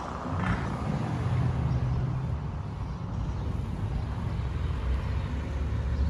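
A motor vehicle's engine running, a low steady rumble, from a van on the road.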